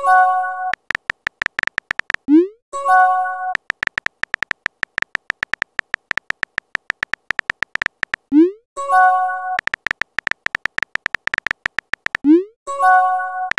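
Texting-app sound effects: two long runs of rapid keyboard typing clicks, each ending in a short rising pop as the message is sent, then a short multi-note chime as the next message appears. There are four chimes and three pops in all.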